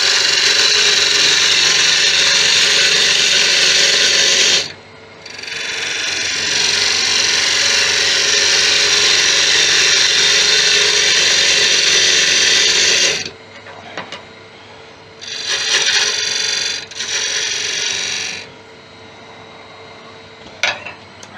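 Turning tool cutting the outside of a spinning acacia blank on a wood lathe, taking down its diameter: a loud, even hiss for about four seconds, a short break, a second long cut of about eight seconds, then two short lighter passes. The lathe runs quietly between cuts, with a couple of clicks near the end.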